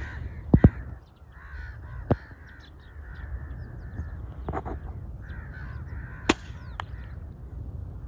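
Crows cawing over and over, with a few sharp clicks in between, the loudest about six seconds in.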